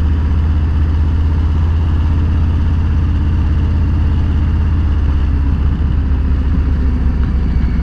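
Motorcycle engine running steadily while riding, a low, even engine note with road and wind noise over it.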